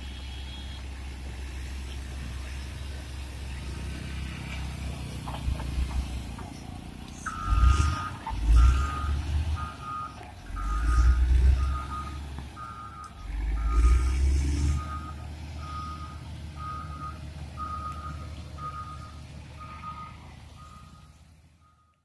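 Motor grader's diesel engine running, with three louder low surges in the middle. From about a third of the way in, its reversing alarm beeps steadily, about one beep every three-quarters of a second, as the grader backs up.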